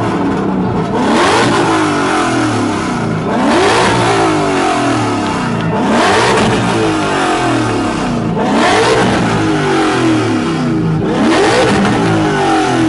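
Car engine revved hard again and again through a loud exhaust: about five rising revs a couple of seconds apart, the pitch dropping back between each.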